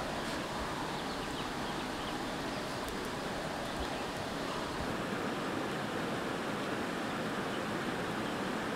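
Steady rushing of a rocky river's rapids.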